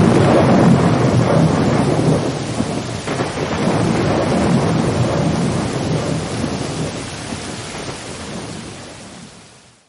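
Rain with rolling thunder: the low rumble swells at the start and again about four seconds in, then the whole sound fades away to silence just before the end.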